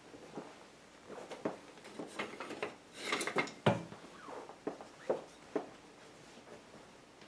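Scattered kitchen knocks and clinks of cookware and utensils being handled, with the loudest knock about three and a half seconds in.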